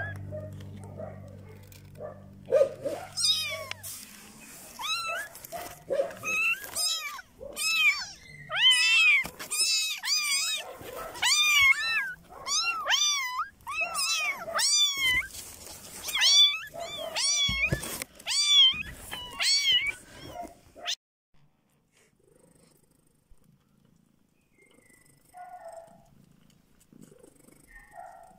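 Tiny kittens mewing over and over, high thin rising-and-falling cries coming several a second, which stop about three-quarters of the way through.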